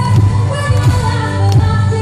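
A woman singing live into a microphone over loud amplified music with a heavy bass.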